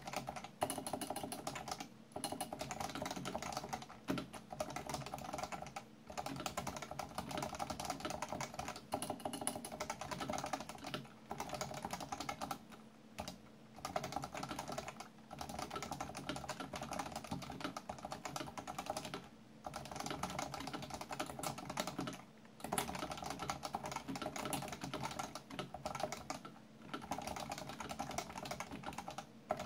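Continuous fast typing on a Leopold FC660C compact keyboard with Topre capacitive switches: a dense run of keystrokes with brief pauses every few seconds.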